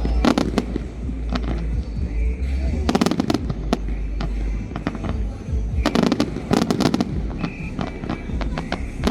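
Fireworks going off in quick clusters of sharp cracks and pops, about every three seconds, over a steady low rumble.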